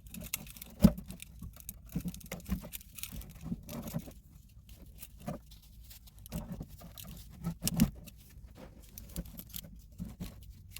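Irregular rustling, scraping and knocking of someone handling tools and a bag and shifting about, with a sharp knock about a second in and another near the end.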